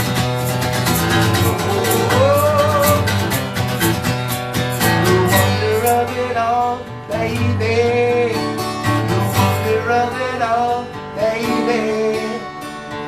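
Acoustic guitar played with a sung melody over it: a live song performance.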